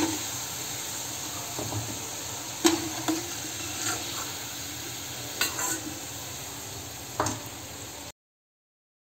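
Vellai seedai, small rice-flour balls, sizzling steadily in hot oil while a metal spoon stirs and lifts them out, with a few sharp clinks against the pan. The sound cuts off suddenly near the end.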